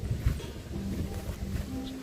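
Background music with long held notes over a low rumble.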